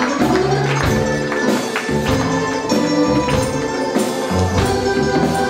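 Live wedding band playing a song with a steady beat: held notes over a moving bass line, with regular sharp percussion strikes and guests clapping along.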